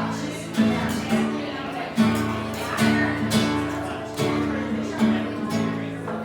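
Acoustic guitar strumming chords in a steady rhythm, an instrumental passage of a live song.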